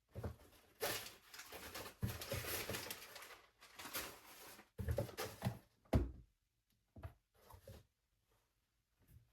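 Rustling and clattering of packaging and small parts being handled, in irregular bursts with a few knocks over the first six seconds, then a few light clicks.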